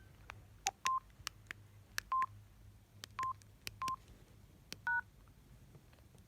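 Samsung SGH-D600 keypad being pressed: scattered sharp key clicks, several of them with a short electronic key beep, about half a dozen beeps in all, as the phone's menu is stepped through. The last beep, about five seconds in, sounds two tones together.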